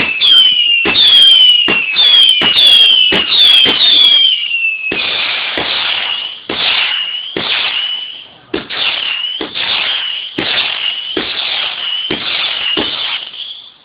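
Fireworks firing whistling shots in rapid succession, roughly one every two-thirds of a second. Each shot is a sharp report with a falling whistle and a crackling hiss. The volley stops abruptly just before the end.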